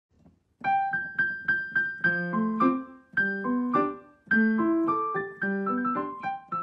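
Piano music: a melody of struck notes, each ringing and fading, with a lower line under it, starting about half a second in.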